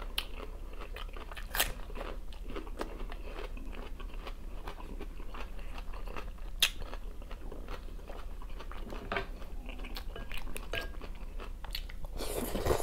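Close-up sounds of a person eating noodle soup: steady chewing with two sharp clicks or crunches, and a slurp of noodles near the end.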